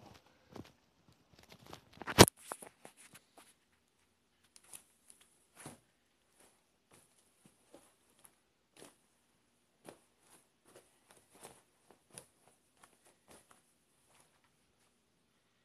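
Sneakers stomping and stepping on carpet: scattered soft thuds, with one much louder stomp about two seconds in.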